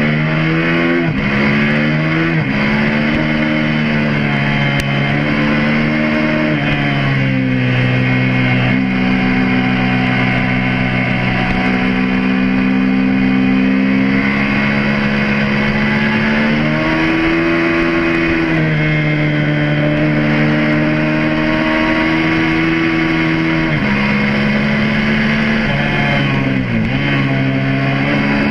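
Suzuki SV650S's V-twin engine running hard on a race circuit. Its pitch climbs under acceleration and drops in steps several times as the rider shifts and brakes for corners, over a steady rush of wind and road noise.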